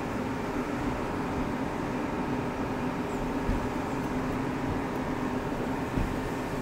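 Truck engine running steadily on a mountain road, heard from aboard, with a steady hum over road and wind noise. Two brief low thumps come about three and a half and six seconds in.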